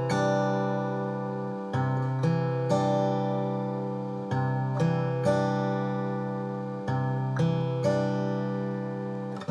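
Background music on acoustic guitar: a chord strummed about every two and a half seconds, left to ring, with a few single notes plucked in between.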